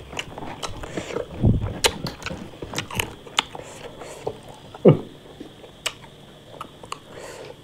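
A person chewing food close to the microphone, with many sharp wet mouth clicks and smacks.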